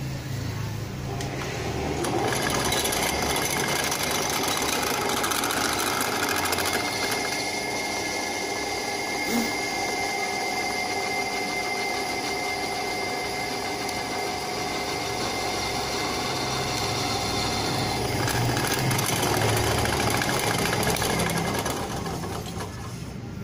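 Bench drill press running, its bit cutting into a small scrap disc-brake part held in pliers. The sound builds over the first couple of seconds as the bit bites, holds steady with a whine, and eases near the end.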